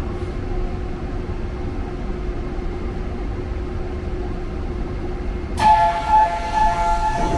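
Steady rumble and hum of a subway train, then about five and a half seconds in an electronic two-tone chime starts suddenly and pulses.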